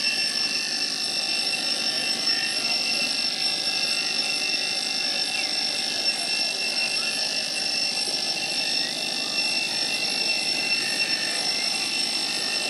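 Cicadas in a steady, high-pitched buzzing drone, several shrill tones held unbroken over a background hiss.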